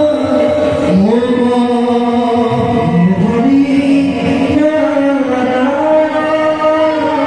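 Singing of an Assamese bhaona song: a voice holds long, chant-like notes that slide up and down between steps in a slow melody.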